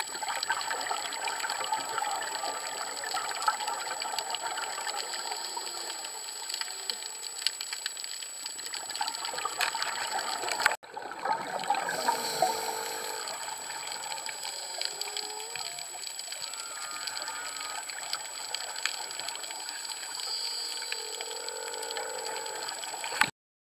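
Underwater sound of scuba divers breathing through regulators: exhaled bubbles gurgling over a steady hiss, with many small clicks. The sound breaks off for an instant about eleven seconds in.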